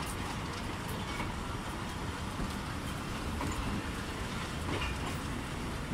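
Pakistan Railways passenger coaches rolling past on a departing train: a steady rumble of wheels on rail, with a few sharp clacks as wheels cross rail joints.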